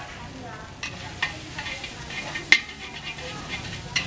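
Rice vermicelli frying in a hot wok, sizzling steadily, while a metal spatula stirs and scrapes through the noodles, with several sharp clanks of the spatula on the wok, the loudest about two and a half seconds in.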